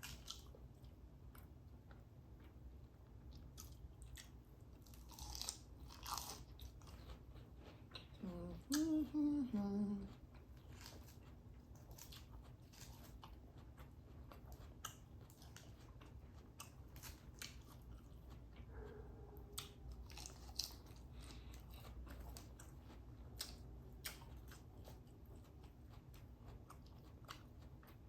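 Close-miked chewing: soft wet mouth clicks and small crunches of someone eating. About eight seconds in comes a short hummed voice sound of about two seconds, the loudest moment, and a fainter one later.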